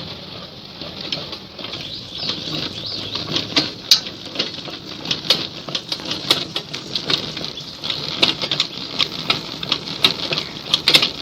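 Bicycle-driven washing machine running: the bicycle is pedalled so that its rear wheel turns a drum of detergent water and clothes, giving a stream of irregular clicking and rattling.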